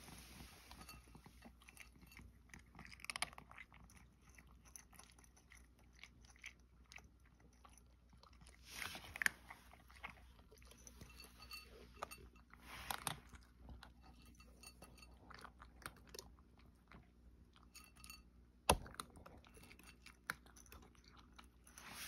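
Cat crunching dry kibble from a bowl: a faint, irregular run of small crunches and clicks, with a few louder clusters and one sharp click about three-quarters of the way through.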